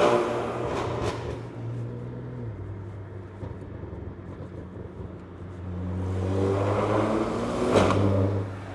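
BMW S58 twin-turbo inline-six running through a catless downpipe and titanium equal-length X-pipe catback exhaust, accelerating under throttle in two pulls, quite loud. The first pull eases off about a second in; the engine swells again toward the end with a sharp crack at its peak, then drops away.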